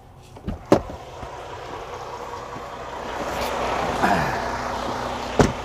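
Sharp clicks of a semi-truck cab door being opened, then outdoor noise and wind growing louder as the driver gets out of the cab, with another sharp knock near the end.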